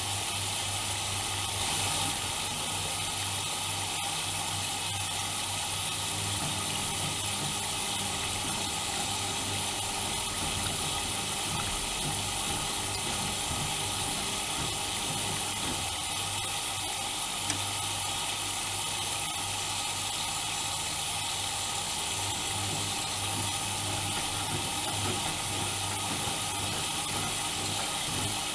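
Bauknecht WAK 5750 G washing machine running mid-cycle: a steady hiss over a low hum, with extra low tones joining for a stretch in the middle.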